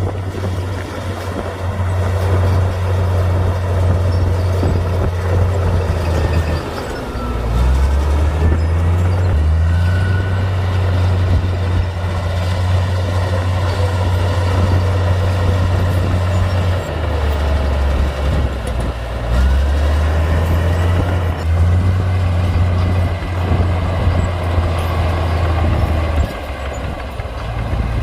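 Komatsu D58P bulldozer's diesel engine running steadily under load, its low drone shifting in pitch every few seconds as the machine works. Faint squeals that rise and fall come now and then.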